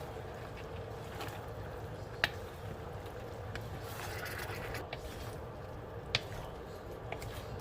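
Cooking in a pot of vegetables: a steady low hiss with sharp clicks of a utensil against the pot about two seconds in and again about six seconds in.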